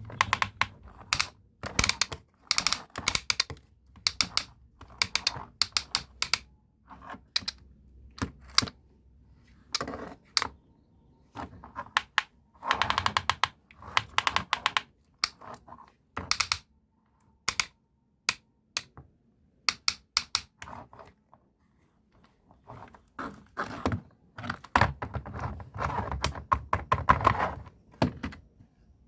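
Irregular runs of sharp plastic clicks, clacks and light knocks, as of a plastic toy being handled, with short pauses between the clusters.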